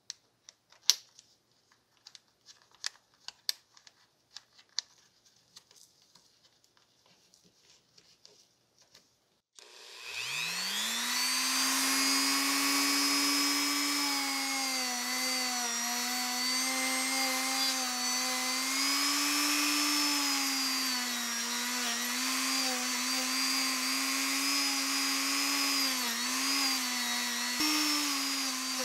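Light clicks and taps as an abrasive-pad mandrel is fitted into a handheld rotary tool's collet. About ten seconds in, the motor starts with a rising whine up to speed, then runs steadily, its pitch wavering a little, as the non-woven abrasive pad scrubs the oxide layer off aluminum.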